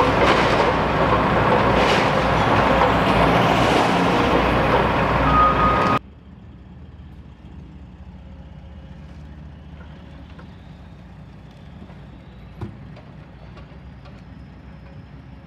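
Heavy demolition machinery, an excavator and a diesel dump truck, running loud and steady. About six seconds in the sound drops suddenly to a faint distant rumble with small ticks and one sharp knock.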